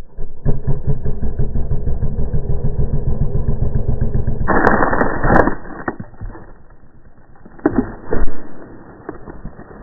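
BMW F800GS parallel-twin engine pulling away hard in sand, a steady rapid beat of exhaust pulses. About four and a half seconds in, a loud hiss of sand thrown by the rear tyre hits the camera, and the engine sound falls away. Two sharp knocks follow near the end as more sand strikes it.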